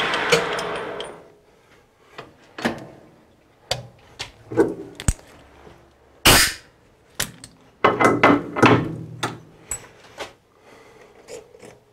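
A 12x36 metal lathe running down to a stop, followed by scattered metal clinks and knocks as hands work at its three-jaw chuck, with the loudest knock about six seconds in and a quick run of clinks around eight to nine seconds.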